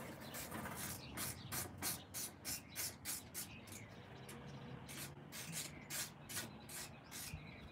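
Quick rhythmic rasping strokes, about five a second with a short pause midway, from hand work with a tool or rag at the front fork of a BMW S1000RR motorcycle.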